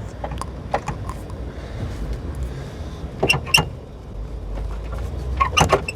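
Scattered sharp metallic clicks and clinks of hand tools and parts during front suspension work, coming in small clusters, with a few near the start, two in the middle and a quick run near the end.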